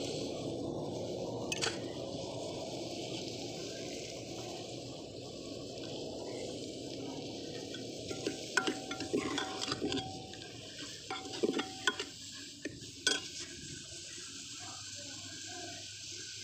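Onion-tomato masala sizzling steadily in desi ghee in an aluminium pot, with a steel ladle stirring it. The ladle knocks and scrapes against the pot once about two seconds in and in a cluster of clinks later on.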